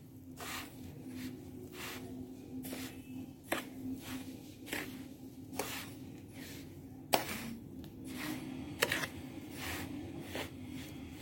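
A spoon stirring a dry mix of salt, chili powder and roasted asafoetida in a bowl: repeated scraping strokes with a few sharp clicks of the spoon against the bowl, over a steady low hum.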